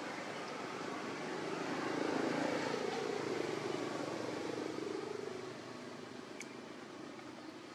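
A passing engine in the background: it grows louder over the first two seconds, peaks, then fades away. A single short click sounds near the end.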